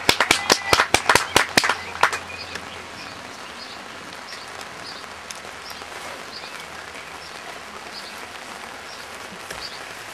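A small group of people clapping, sharp separate claps about four or five a second, stopping about two seconds in. After that a steady outdoor hiss with faint scattered bird chirps.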